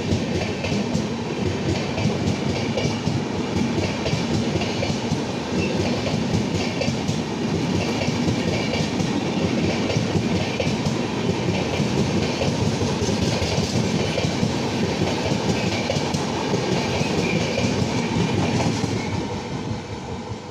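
Red passenger coaches of an Indian Railways train running through a station at speed: steady rolling and rushing noise with wheels clicking over rail joints. It starts to fade near the end as the last coach passes and draws away.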